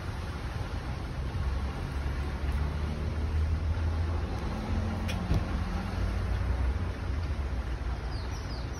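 Low rumble of a road vehicle's engine, swelling through the middle and easing off, with one sharp click about five seconds in.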